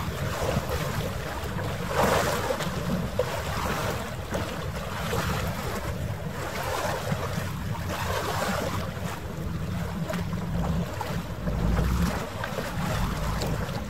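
Wind buffeting the microphone in a constant low rumble, with small harbour waves lapping in swells every second or two. The audio is sped up, so the lapping comes faster than it would in real time.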